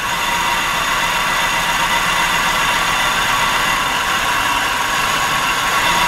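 A 1997 Nissan Altima's 2.4-litre four-cylinder engine idles steadily with a misfire on cylinder 4. Its fuel return line is pinched off to push maximum fuel pressure through the rail, and the idle changes with it, which points to a fuel problem.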